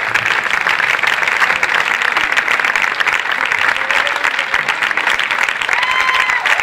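Concert audience applauding steadily, a dense patter of many hands clapping. A short high tone sounds twice near the end.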